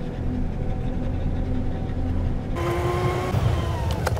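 Cabin noise of a pickup truck on the move: a steady low drone of engine and tyres. About two and a half seconds in it turns suddenly to a brighter rushing road and wind noise, with a faint whine that slides up and down and a single click near the end.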